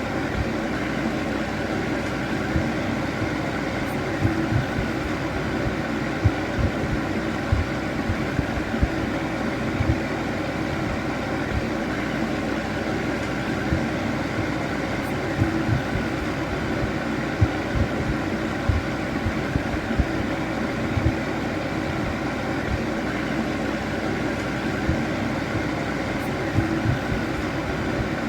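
Electric fan heater running steadily: an even whirring rush of air with a steady hum, and irregular soft low thumps throughout.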